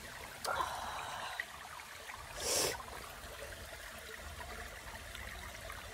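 Shallow creek trickling faintly over rocks, with a short rush of noise about two and a half seconds in.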